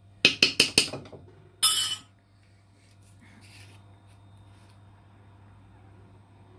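A metal spoon taps about five times in quick succession against a cooking pot, then gives a short scraping clatter.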